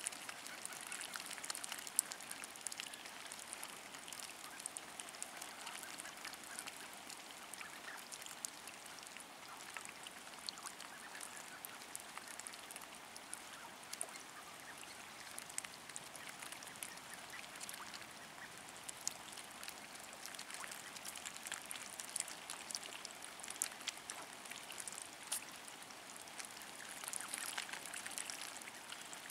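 A flock of mallards dabbling in a shallow muddy puddle: many quick, faint clicks and slurps of bills sifting water and mud, with occasional quacks.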